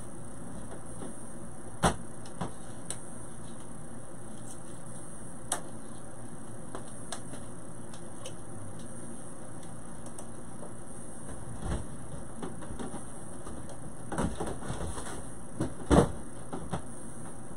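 Steady background hiss with scattered light knocks and bumps, the sharpest about two seconds in and a small cluster near the end.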